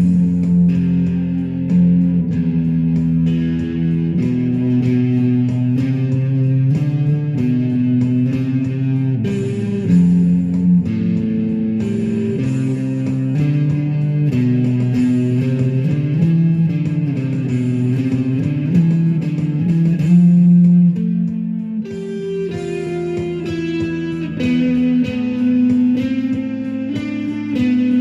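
Rock music led by electric guitar over a bass guitar, playing steadily with notes changing every second or so.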